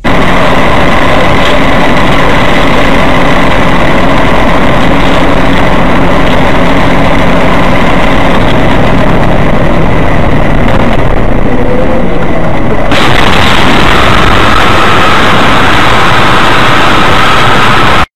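Steady vehicle engine and road noise picked up by a car's dash camera, recorded very loud and distorted. Its character changes abruptly about 13 seconds in, and it cuts off suddenly at the end.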